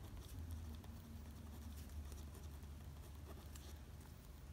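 Faint scratching of a pen writing on paper, in short strokes, over a steady low room hum.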